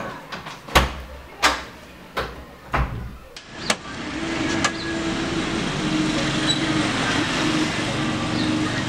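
Four sharp knocks, a little under a second apart. About three and a half seconds in comes steady street noise, with a vehicle engine running.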